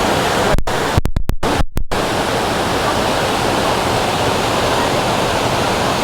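Waterfall rushing steadily into a pool. The recording cuts out briefly several times between about half a second and two seconds in.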